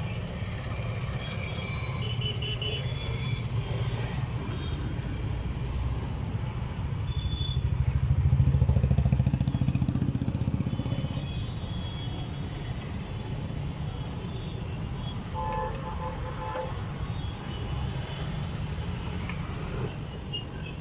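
Passing road traffic: a steady low rumble of vehicles, swelling as one loud vehicle passes close about eight to ten seconds in, with a few short high tones over it.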